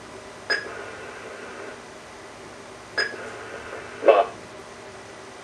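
Two sharp electronic clicks from a Cheap Talk 8 speech-output communication device, about two and a half seconds apart, each with a brief beep in it. About four seconds in comes a very short burst of recorded voice played back by the device.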